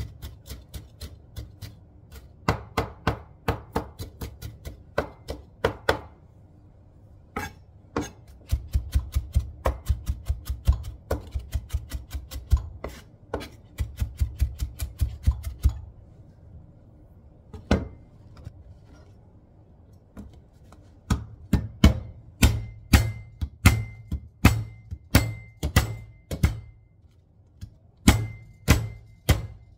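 Chef's knife mincing on a cutting board: quick runs of chopping knocks, about three or four a second, broken by short pauses.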